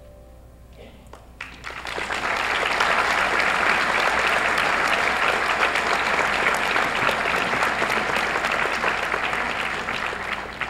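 Audience applauding. The clapping breaks out about a second and a half in, holds steady, and thins out near the end.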